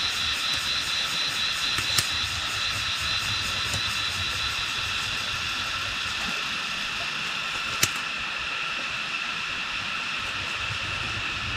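A steady, high-pitched buzzing drone with a fast, even pulse, broken by two sharp clicks, one about two seconds in and one near eight seconds.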